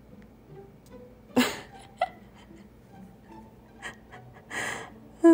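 A person's sharp, breathy exhales, twice, the first about a second and a half in and the loudest, with a few small clicks between them.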